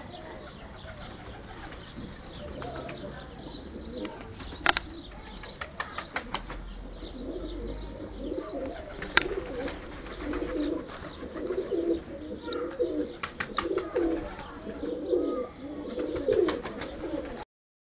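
Pigeons cooing in repeated low warbling phrases, with sharp wing claps and bursts of wing flapping, two loud claps standing out. The sound cuts off abruptly near the end.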